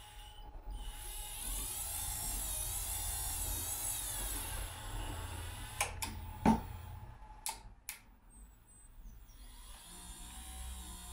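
Wiper motor driving the screw of an electric bench vise, running with a high wavering whine for a few seconds. Several sharp clicks follow, the loudest about six and a half seconds in, and near the end the motor hums steadily again.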